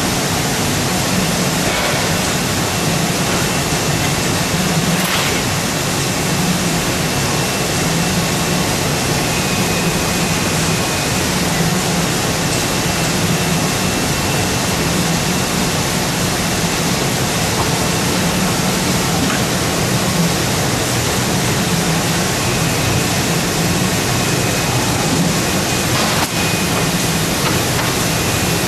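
Steady machine noise of a paper cutting line running: a Wohlenberg 137 guillotine with its jogger and Transomat unloader, with a low pulsing hum and a faint thin whine that comes and goes. Two short knocks sound, about five seconds in and near the end.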